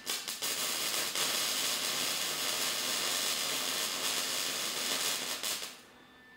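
Welding arc crackling and hissing steadily for about five and a half seconds, then stopping shortly before the end.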